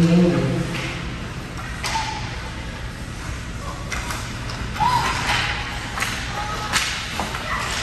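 Youth ice hockey play in an indoor rink: skates scraping on the ice, with several sharp clacks of sticks and puck against each other and the boards, about five over the few seconds. A voice is heard briefly at the start.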